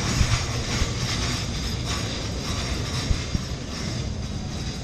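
Container wagons of a long freight train rolling slowly past: a steady rumble of wheels on the rails with a few sharp knocks.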